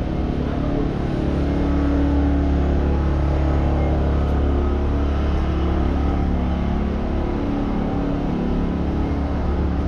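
City street traffic: a steady low engine rumble with a held hum. It swells about a second in and eases slightly in the second half.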